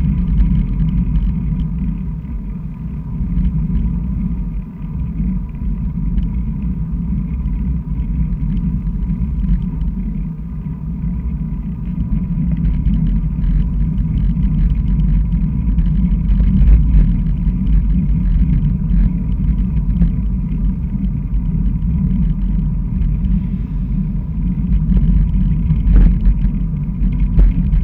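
Steady low rumble of wind buffeting and road vibration on a handlebar-mounted camera while riding, most likely a bicycle, along rough asphalt.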